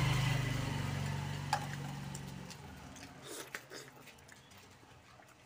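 A vehicle engine's steady hum fades away over the first two or three seconds. A single sharp click comes about a second and a half in, followed by faint soft squishing as fingers work chicken curry in a steel bowl.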